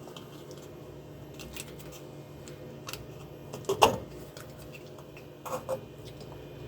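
Light scrapes and knocks of a 3D-printed plastic bar support being pushed into a lathe spindle bore, a snug fit, with the sharpest knock almost four seconds in, over a steady low hum.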